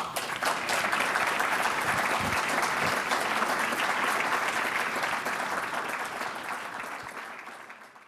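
Lecture-hall audience applauding, many hands clapping together; the applause dies away near the end.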